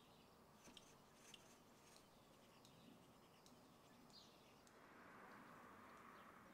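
Near silence: faint room tone with a few soft, brief high ticks and a faint hiss near the end.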